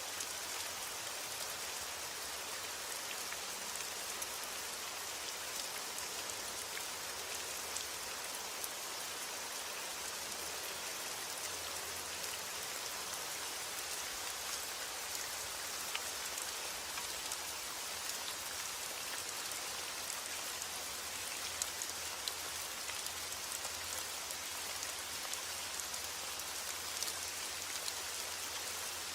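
Heavy rain falling steadily: a dense, even hiss of rain with scattered sharper taps of individual drops.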